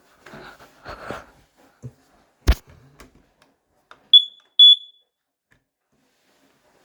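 Smoke alarm sounding two short, loud, high-pitched test beeps about four seconds in, after a sharp knock from the unit being handled about two and a half seconds in.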